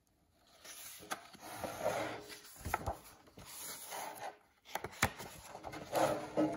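Pages of a picture book being turned by hand: paper rustling and sliding, with a few sharp clicks about one, three and five seconds in.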